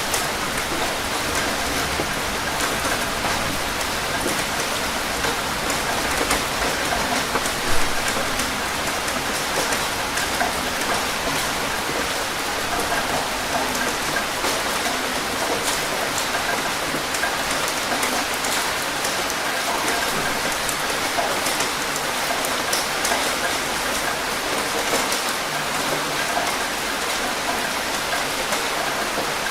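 Steady rain falling: an even hiss with many separate drop hits, and one slightly louder hit about eight seconds in.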